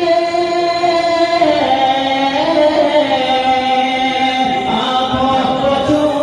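Unaccompanied devotional chanting: voices singing long held notes, the melody stepping down about a second and a half in and shifting again just before the middle.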